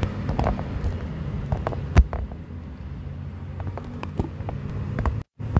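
Handling clicks and knocks on a smartphone as a wireless microphone's receiver is plugged into its charging port, with one sharp click about two seconds in. Near the end the audio cuts out completely for a moment.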